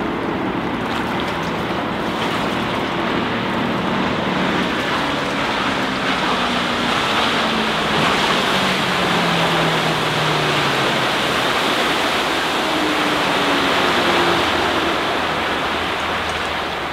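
A steady rush of wind and water noise, with the 2004 Larson Cabrio 240's MerCruiser 5.0 MPI V8 stern drive under way at speed underneath: its drone falls in pitch from about a quarter of the way in to just past the middle as the boat runs past.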